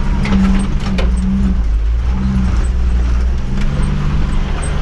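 1989 Jeep Wrangler YJ engine running low and steady as the Jeep crawls down a dip in four-low, with a few knocks and rattles in the first second or so.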